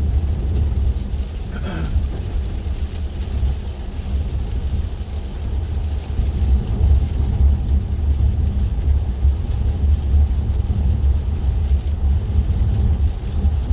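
Road noise inside a Tesla Model 3 cabin while driving on wet roads: a steady low rumble from the tyres and road, with no engine sound.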